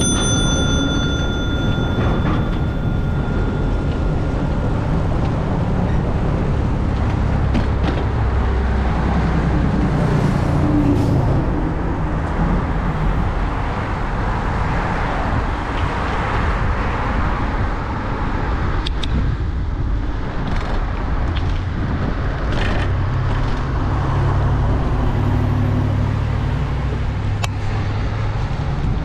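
Road traffic on a busy street: a steady rumble and hiss of passing cars and trucks, with a few brief clicks.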